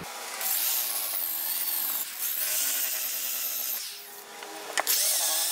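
ProEkco EP6411 700 W electric polisher with a sandpaper disc sanding a wooden board, played back sped up about five times, so the motor and the rubbing of the disc sound fast and high. The sound dips briefly about four seconds in, and a sharp click follows.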